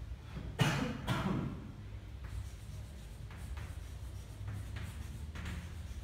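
Chalk writing on a blackboard: short taps and scratches of chalk, with two louder strokes about half a second apart near the start, over a steady low room hum.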